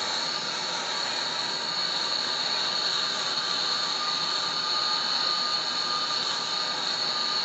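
Handheld gas brazing torch burning with a steady, high hissing roar while it heats a copper refrigerant pipe joint on a window air conditioner's compressor line for brazing. The joint is being brazed to repair a refrigerant leak.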